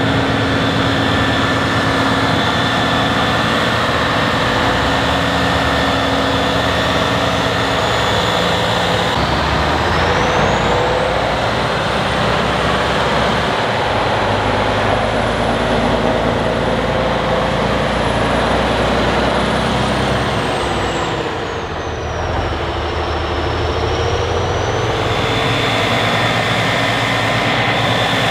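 Heavy offroad trial truck's diesel engine running hard under load. A high whine rises in pitch about a third of the way in, holds, then falls away near the end.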